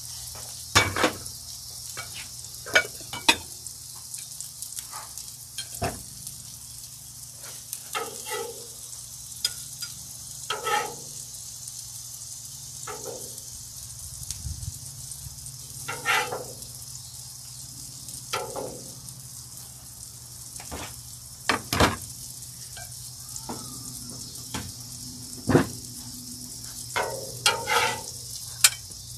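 Butter-and-brown-sugar sauce with sliced bananas, and French toast, sizzling steadily on a Blackstone flat-top griddle. A metal spatula now and then clacks and scrapes against the griddle steel as the toast is lifted off.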